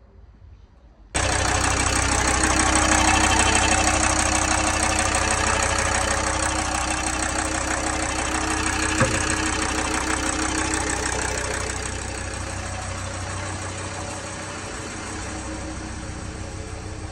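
VW Crafter 2.5 TDI five-cylinder diesel engine idling steadily, running on a newly fitted timing belt, water pump and fan belt. The engine comes in abruptly about a second in.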